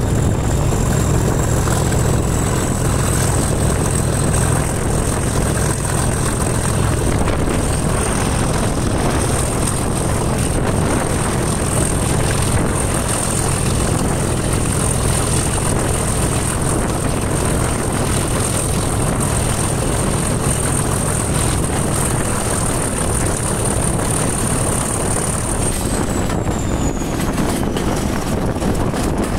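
Class 37 diesel locomotive's English Electric V12 engine working hard under power as it pulls away, a loud steady thrashing with a high whistle that falls away near the end, heard from the cab window with wind rushing past the microphone.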